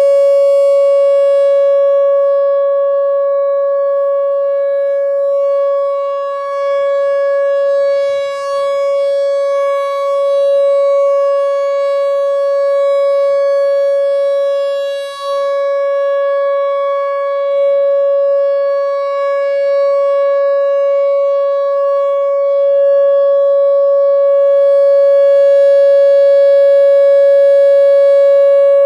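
Whelen Vortex R4 outdoor warning siren sounding a steady alert tone at the same pitch throughout, its loudness wavering slightly now and then.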